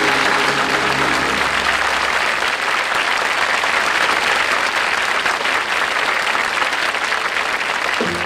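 Studio audience applauding, a dense, steady clapping, with the band's last held chord dying away over the first two seconds.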